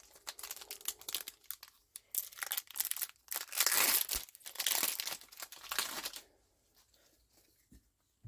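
Foil wrapper of a trading card booster pack crinkling and tearing as it is handled and opened, loudest about midway and stopping about six seconds in.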